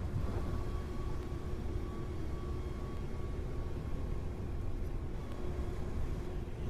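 Steady low rumble with a faint constant hum on top: a storm-chase vehicle running as a tornado approaches.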